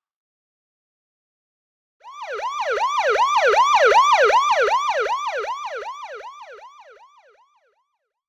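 Police car siren sound effect: a fast wail sweeping up and down about three times a second. It starts about two seconds in, swells, then fades away before the end.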